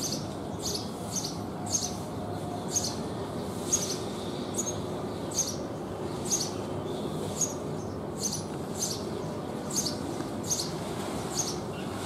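Male house sparrow chirping: a steady series of short, high chirps, a little more than one a second.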